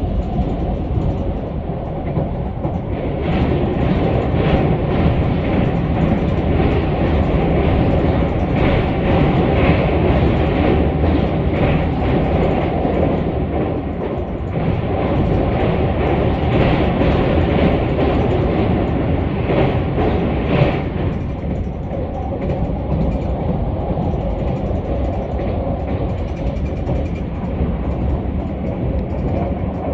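Keisei AE-series electric train heard from on board while running along the line, a steady rumble. For most of the first twenty seconds there is a repeated clatter of wheels over rail joints, which eases off near the end.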